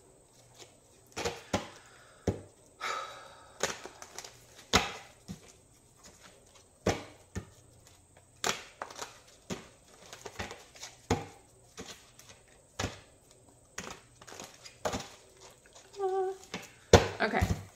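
A tarot deck being shuffled and handled by hand: irregular sharp snaps and slaps of the cards, with a few brief swishes.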